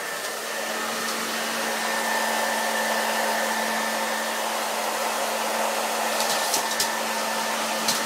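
Handheld hair dryer running steadily: a continuous rush of air with a low motor hum. A few short clicks come near the end.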